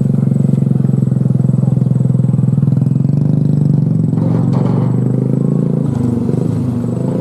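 A motor vehicle's engine runs steadily close by, loud and low-pitched, its note holding even before easing slightly near the end.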